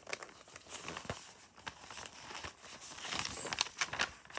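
Paper pages of a picture book rustling as they are turned and the book is handled, with small taps and a louder swish about three seconds in.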